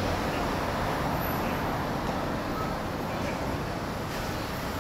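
Jet engine noise from an Airbus A330-243's Rolls-Royce Trent 772 turbofans as the airliner climbs away after takeoff: a steady, broad rumble that slowly fades.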